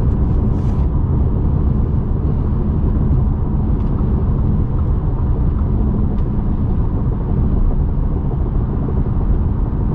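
Steady in-cabin drone of a 2021 Audi Q3 cruising at highway speed: tyre and road rumble mixed with the low hum of its turbocharged 2.0-litre four-cylinder, unchanging throughout.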